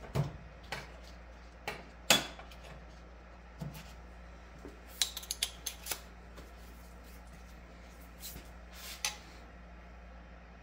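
Metal hand tools clinking and knocking as they are picked up and set down: scattered sharp knocks, the loudest about two seconds in, a quick run of clicks between five and six seconds, and a couple more near nine seconds.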